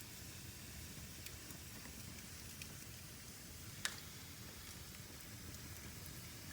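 Wood fire burning in a fireplace, crackling softly over a steady low rumble, with one sharp pop about four seconds in.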